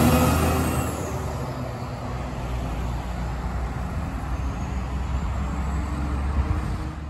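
The last moment of a Peterbilt 379 tank truck's air horn blast, cut off right at the start. Then the truck's diesel engine pulls away with a steady low drone among passing car and pickup traffic with tyre noise.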